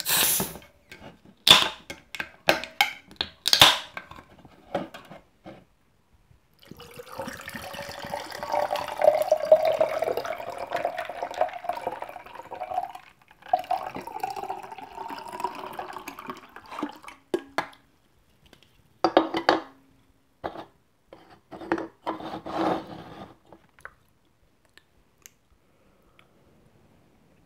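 Two aluminium drink cans being opened by their pull-tabs: sharp clicks and snaps in the first few seconds. Then the canned drink is poured over ice into two glasses. The pour rises in pitch as each glass fills, with a short break between the two pours, and a few scattered knocks follow.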